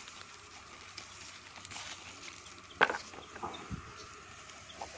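Leaves and stems of a siling labuyo chili plant rustling as a hand picks the peppers, with one sharp click about three seconds in.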